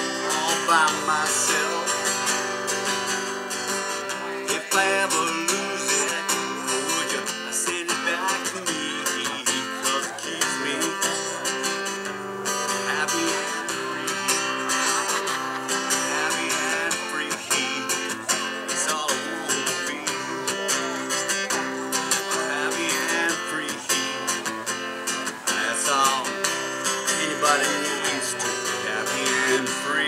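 Acoustic guitar strummed as a song accompaniment, with a man singing over it at times.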